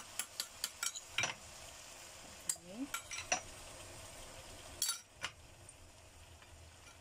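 Blended chili paste frying in hot oil in a wok with a faint steady sizzle, under scattered clinks and scrapes of a spoon against the pan and plate.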